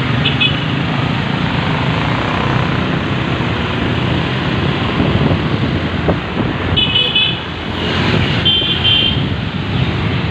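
Busy road traffic heard from a moving motorbike: a steady rush of engine and road noise, with short vehicle horn toots just after the start, about seven seconds in and again about eight and a half seconds in.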